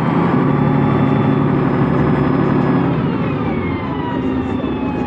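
Volvo B10M bus's underfloor straight-six diesel engine pulling, heard from inside the bus: it holds steady revs with a whine over it, then the pitch falls about three seconds in as it eases off.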